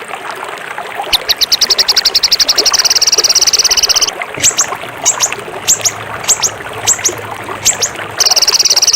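Songbird song: a fast, rattling trill of high notes, about ten a second, then a string of sharp whistles that sweep downward, then the fast trill again about eight seconds in.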